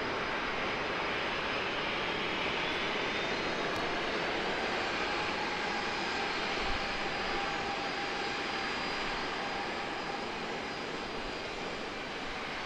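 Boeing 767-400's twin turbofan engines at takeoff thrust during the takeoff roll: a steady jet roar with a faint whine on top, easing slightly near the end.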